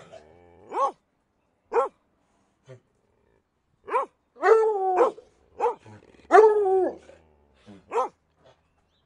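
A dog barking: short single barks, with two longer, drawn-out barks that drop in pitch about four and a half and six and a half seconds in.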